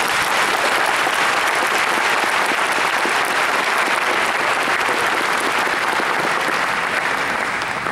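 Audience applauding steadily: a large crowd clapping.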